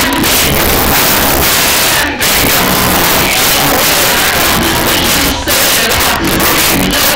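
Loud church worship music with congregation voices mixed in, a dense, steady wall of sound that dips briefly twice.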